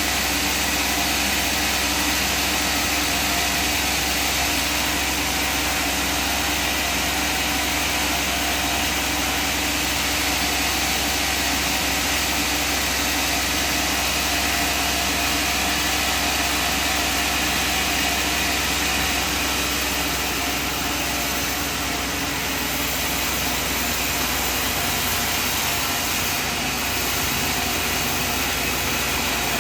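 Sawmill machinery running steadily, an engine-driven hum with a constant hiss, with no sharp cutting impacts.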